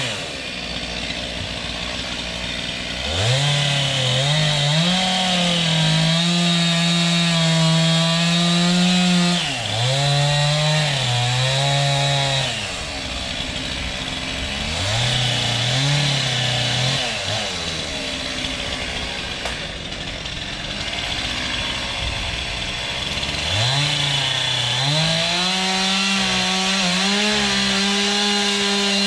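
Chainsaw revving up to full throttle and held there, dropping back to idle in between. It revs up about three seconds in, dips and comes back briefly near ten seconds, idles with short blips of throttle through the middle, and revs up again near the end.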